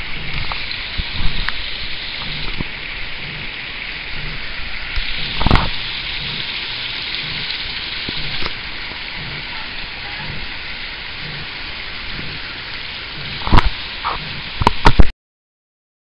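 Shallow creek running over rocks, a steady rushing hiss of water. A few sharp knocks break through it, the loudest cluster near the end, and the sound stops abruptly about fifteen seconds in.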